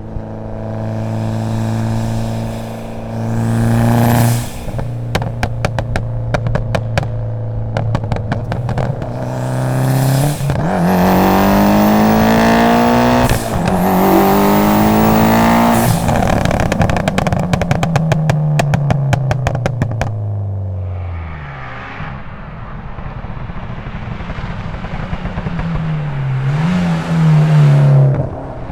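Tuned Mitsubishi Lancer Evolution X RS's turbocharged 2.0-litre 4B11 four-cylinder running steadily, then a blip about four seconds in followed by a rapid string of exhaust pops and bangs. About ten seconds in it accelerates hard, revs rising through a gear change, then falls back with more crackles before settling to a lower steady run with a short rev near the end.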